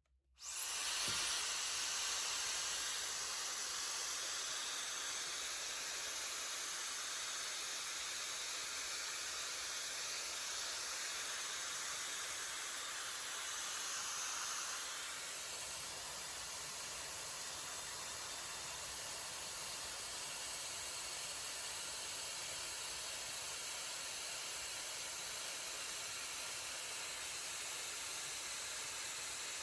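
Hair dryer switched on about half a second in, then running steadily with an even airy hiss, a little quieter about halfway through.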